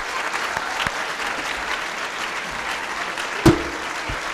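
Audience applauding steadily, with a single sharp knock about three and a half seconds in, the loudest sound.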